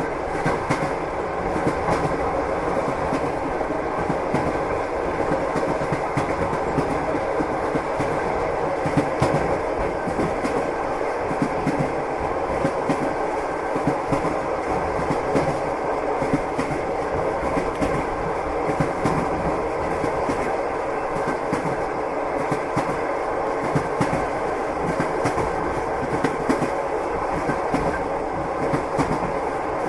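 A train running steadily, heard from inside a passenger carriage: a constant rumble of the running gear with repeated clacks of the wheels over the rail joints.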